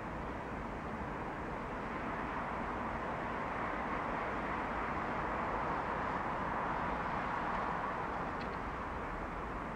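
Electric locomotive approaching slowly at a distance: a steady rushing noise that swells a little midway.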